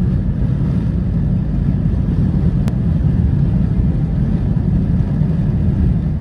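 Road noise inside a car's cabin at highway speed: a steady low rumble. One brief click comes about two and a half seconds in.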